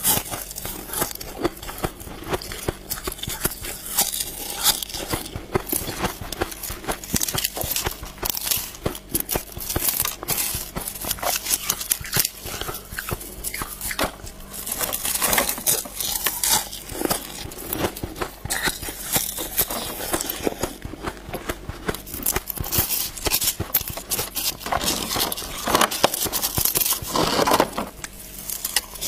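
Thin balloon ice being bitten and crunched close to the microphone: a dense, continuous run of sharp cracks and crackles as pieces snap off and are chewed, with scraping of frosty ice inside the ice shell in between.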